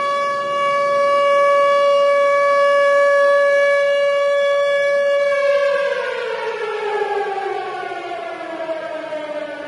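Outdoor tornado-warning siren sounding: it holds one steady wailing pitch, then about five and a half seconds in starts winding down, falling steadily in pitch.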